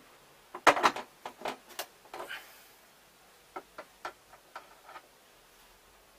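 Screwdriver and hands knocking and clicking against a hard plastic mounting frame: a quick cluster of sharp clicks and knocks, then a few lighter ticks about three and a half seconds in.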